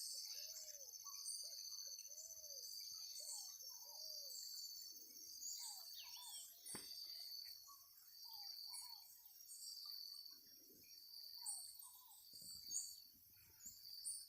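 Woodland insects trilling steadily in a high band, with birds giving many short high chirps throughout. A lower arched call repeats about once a second four times in the first few seconds.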